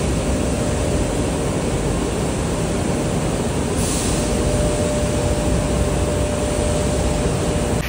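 Industrial bakery machinery running: a loud, steady mechanical din with a thin constant whine through it, from a bladed dough-cutting machine and the production line around it.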